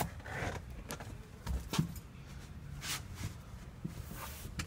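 Faint, scattered knocks and short rustles of someone moving about and handling things in a fiberglass boat's cockpit.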